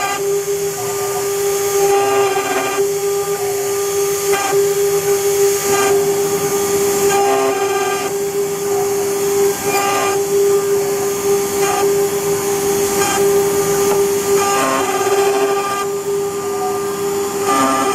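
CNC router spindle running with a steady whine while its bit engraves copper, over a high cutting hiss. A set of higher, ringing overtones cuts in and out every second or two as the cut changes.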